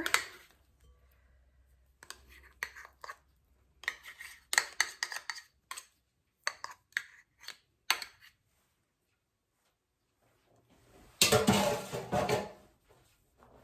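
A metal spoon scrapes shortening out of a plastic measuring cup and taps against the cup and a glass mixing bowl, in a run of short clicks and scrapes. Near the end comes a louder clatter lasting about a second and a half.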